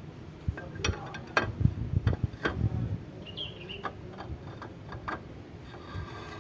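Sharp metal clicks and light knocks, several in quick succession in the first three seconds and a few more later. They come from a connecting rod with its ringed piston being lowered into a tractor engine's cylinder bore and tapping against the block.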